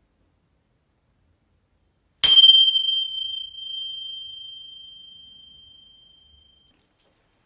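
A small metal chime struck once about two seconds in, ringing on one clear high tone and fading away over about four seconds.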